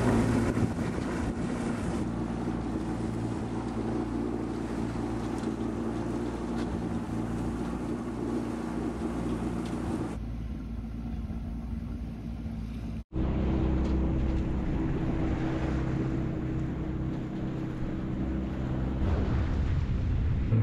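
A sailboat's auxiliary engine running steadily, with wind buffeting the microphone and water rushing past the hull. The sound cuts out for an instant about 13 seconds in, and the engine note changes after it.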